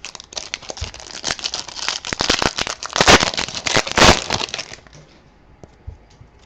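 Crinkling and crackling of a trading-card pack's foil wrapper being handled and torn open, loudest midway, then stopping about five seconds in.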